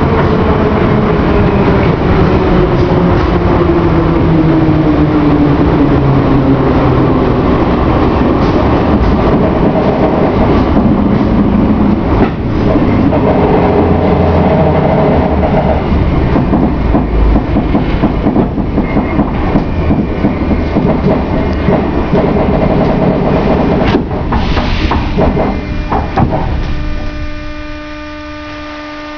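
Old Moscow metro car running through a tunnel: loud rumble of wheels on rails with clickety-clack, and a whine that falls in pitch over the first several seconds. Near the end the train brakes with a few clanks and comes to a stop, leaving a steady electrical hum.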